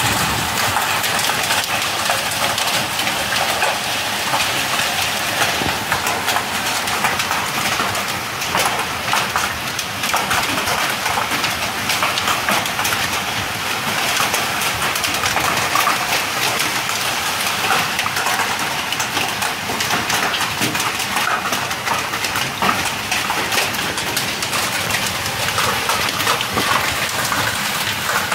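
Hailstorm downpour drumming on corrugated sheet-metal roofs: a dense, steady patter of countless fine taps that does not let up.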